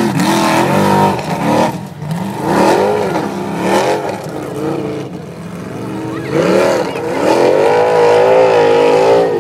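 Formula Offroad buggy's engine revving hard as it climbs a steep sand slope, its pitch rising and falling again and again as the revs surge and drop. The revs sag briefly midway, then climb to a high, sustained note near the end.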